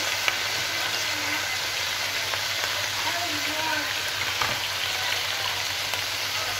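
Bok choy sizzling steadily as it is stir-fried in hot oil with garlic, with an occasional faint tick of the stirring utensil.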